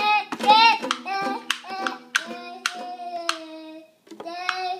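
A toddler singing tunelessly in a high voice, with one long held note in the middle, while slapping the strings of a small acoustic guitar. The open strings ring under the voice, and each strike is sharp.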